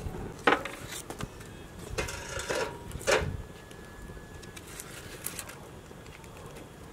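Wood fire of thin branches burning in a steel-drum stove, with several sharp knocks of sticks against each other and the metal in the first three seconds, then lighter crackling.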